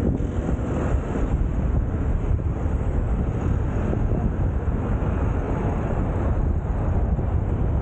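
Steady road and traffic noise from a moving car, with low wind rumble on the microphone of a camera mounted on the car's roof.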